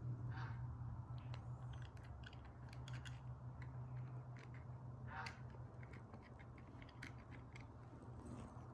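Scattered light clicks and taps of metal parts being handled on a vintage all-metal sewing machine during oiling, over a steady low hum.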